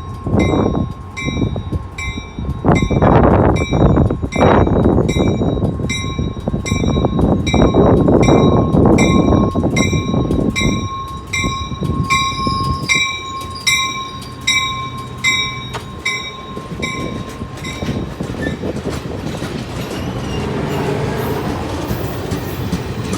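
A train passing close, its heavy rumble loudest over the first half and then easing off, while a bell rings steadily about twice a second and fades away about eighteen seconds in.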